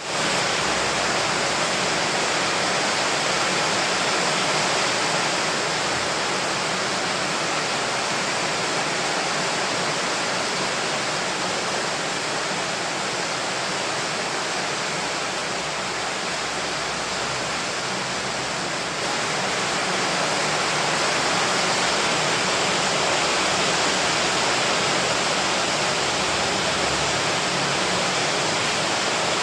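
Rain falling steadily, an even, dense hiss with no separate drops or rhythm, stepping up slightly in loudness about two-thirds of the way through.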